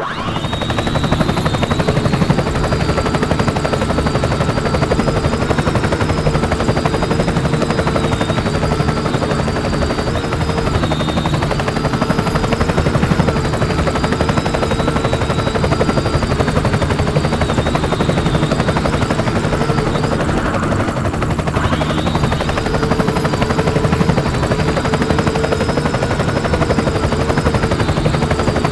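Small multirotor drone's propellers and motors buzzing steadily, starting suddenly, the whine's pitch wavering up and down, with a brief dip about twenty seconds in.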